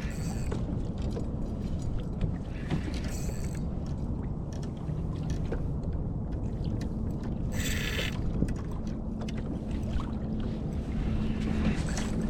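Wind on the microphone and water moving around a kayak's hull, with three short hissing rushes.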